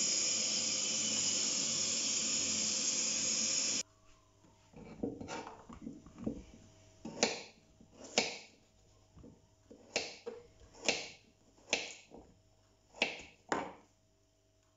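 Cold water pouring in a steady stream onto dried rice vermicelli in a bowl, cutting off suddenly after about four seconds. Then a knife cuts carrots on a wooden chopping board, about nine separate sharp chops.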